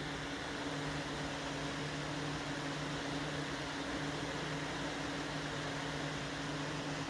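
Vintage Emerson Electric 20-inch reversible box fan running steadily: an even rush of air over a constant low motor hum.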